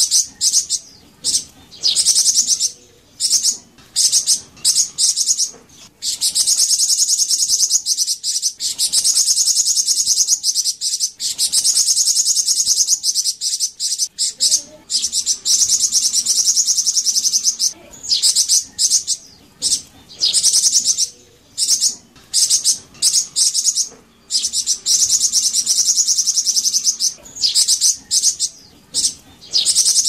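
Song of a flamboyan bird: long runs of rapid, high, trilling twitter, each a few seconds long, broken by short pauses.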